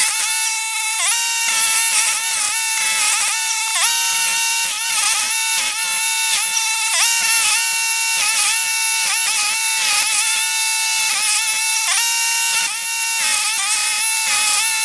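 Toro STX-38 stump grinder under load, its cutter wheel chewing into a large tree stump. The engine's pitch sags and recovers about once a second as the wheel bites into the wood.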